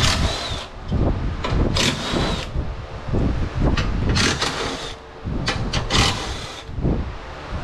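Cordless drill-driver run in about four short bursts, each under a second, its motor whine rising and falling, over a low rumble.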